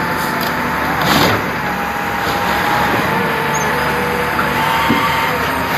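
Heavy machine's engine running steadily while it smashes seized car-audio speaker boxes, with a sharp crunch about a second in and a thin steady whine over the engine.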